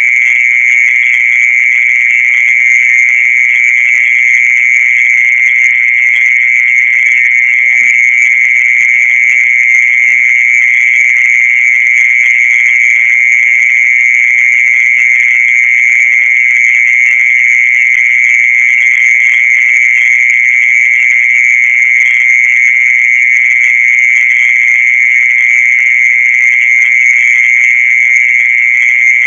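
Continuous, unbroken high-pitched insect trill, steady throughout. This is the night call popularly sold as an earthworm's 'song', which is in fact typical of a mole cricket calling from its burrow.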